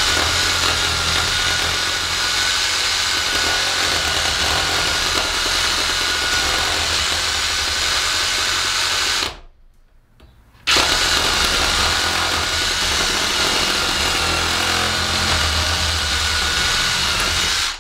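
Cordless one-handed reciprocating saw cutting through a log, running steadily with a high whine. It stops for about a second and a half around the middle, then cuts again and stops at the end.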